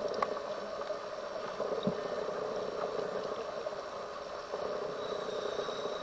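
Underwater sound of a scuba diver's breathing: a steady hiss through the regulator that swells about a second and a half in and again near the end.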